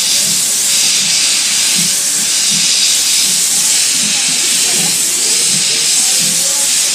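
Steam locomotive hissing loudly and steadily as steam blows out around the engine, the hiss swelling and easing every second or so.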